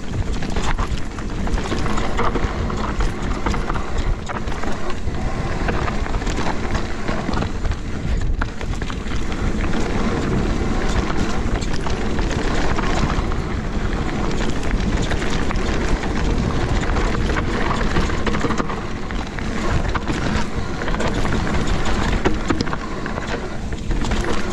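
Mountain bike descending a rough trail at speed: a continuous clatter of tyres over rocks and roots and the bike rattling, with a heavy rumble of wind on the microphone.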